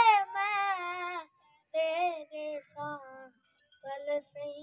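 A boy's high voice singing a naat unaccompanied, in long wavering melodic phrases broken by two short pauses for breath.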